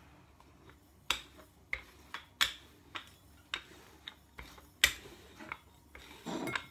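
A rolling pin with metal handles clicking and knocking as it is rolled back and forth over dough: about nine sharp, separate clicks at uneven spacing over six seconds.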